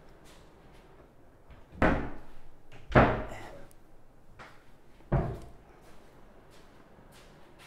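Wardrobe and wall-cabinet doors being swung shut, giving three thuds. The second thud is the loudest, and each one dies away quickly.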